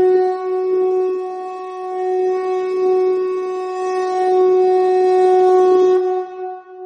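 Conch shell (shankha) blown in one long, steady note that swells and dips slightly in loudness and fades out near the end.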